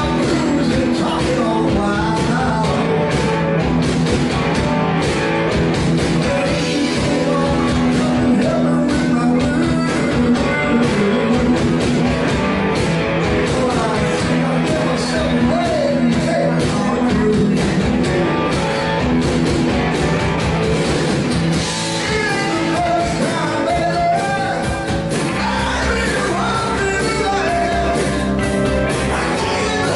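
Rock band playing live, with a lead singer over electric guitar and a steady full-band backing.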